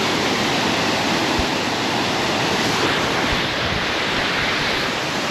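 Waterfall rushing: a steady, full roar of falling water.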